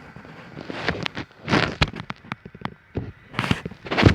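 Lit gas fireplace burner flames burning in gusty wind, with irregular crackles and pops and two louder rushing surges, one about a second and a half in and one near the end.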